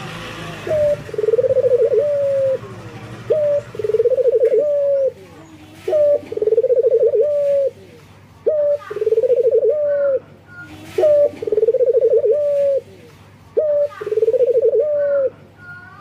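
Male Barbary dove (local puter) cooing six times, about every two and a half seconds: each call is a short higher note followed by a long rolling coo that drops at the end. It is the advertising call of a male in breeding condition calling for a female.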